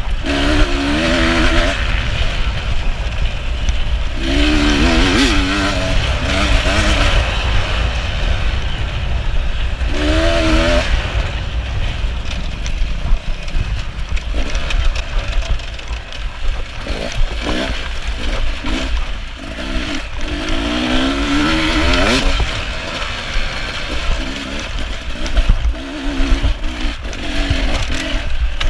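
Beta 300RR two-stroke enduro motorcycle engine under hard riding. It revs up and down in repeated surges as the rider works the throttle and gears, over a constant heavy low rumble.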